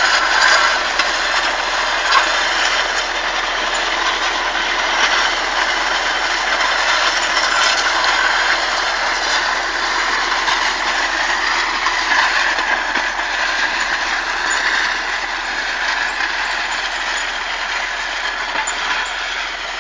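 Massey Ferguson 35 tractor engine running steadily under load as it pulls a potato drill ridger through the soil, getting a little quieter near the end as it moves away.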